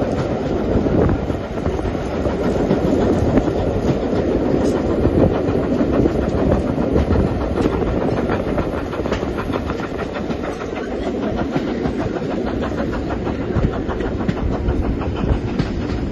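Passenger coaches of a steam-hauled train running along the track, heard from an open carriage window: a steady rumble of wheels on rails with frequent light clicks and clacks over the rail joints.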